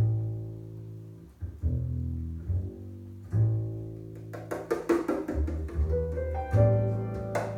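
Recorded music playing through a JBL Control CM-62 two-way loudspeaker: an instrumental intro of plucked double bass notes. Light percussion clicks join about four seconds in, and higher held notes come in near the end.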